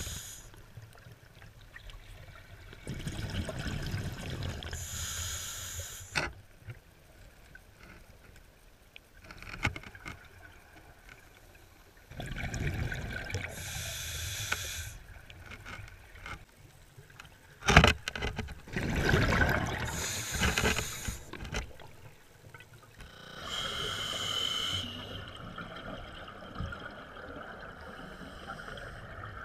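Scuba diver breathing through a regulator underwater: about four breaths, each a hiss from the demand valve and a burst of low bubbling as the exhaled air escapes, several seconds apart. A single sharp click just past halfway.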